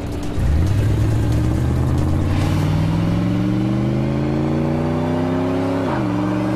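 Car engine pulling away and accelerating hard: the engine note rises steadily, drops once at a gear change about six seconds in, then starts climbing again.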